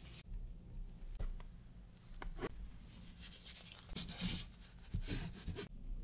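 Plastic bench scraper cutting down through ciabatta dough and scraping on the floured work surface: a few short taps, then two longer scrapes in the second half.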